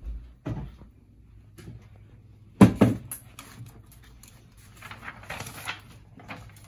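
Handling sounds at a wooden desk: a knock about half a second in and a louder knock a little before the middle as things are set down, a few small clicks, then a rustle of a paper sheet pressed against a shelf near the end.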